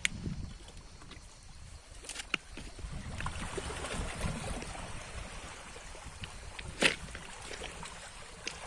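A small boat moving on the sea: water washing and splashing against the hull over a low wind rumble, with a few sharp knocks or splashes, the loudest about seven seconds in.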